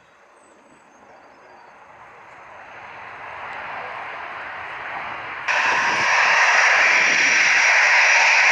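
Fixed-wing airliner's engines, an even rushing noise that grows steadily louder as the aircraft approaches, then jumps suddenly to a much louder, brighter level about five and a half seconds in and holds there.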